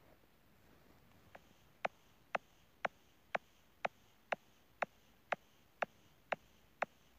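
A sharp percussive click repeating steadily about twice a second, starting about a second and a half in, over faint hiss. These are the opening clicks of a song's beat, before the music comes in.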